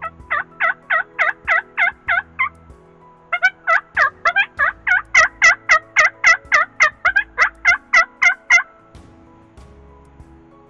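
Turkey yelping: a run of about eight loud yelps at roughly four a second, a short pause, then a longer run of about twenty more.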